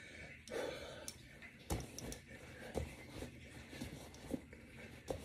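Heavy breathing from a man doing push-ups, hard breaths in and out with the reps, and a few soft knocks.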